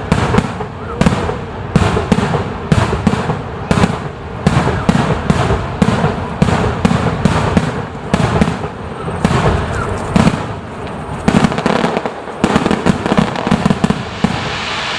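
Fireworks display barrage: aerial shells bursting in rapid succession, several loud bangs a second. About 14 s in the bangs stop and give way to a steady hiss.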